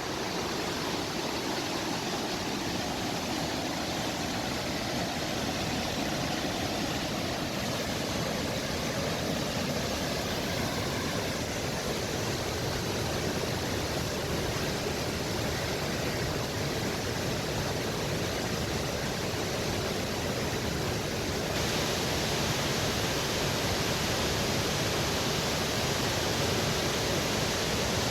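Cascade of waterfalls on a river, water rushing and falling in a steady, even rush, turning a little louder about three-quarters of the way through.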